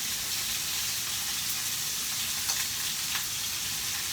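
Vegetables sizzling in hot olive oil in a pot on the stove, a steady frying hiss, with a couple of faint clicks about two and a half and three seconds in.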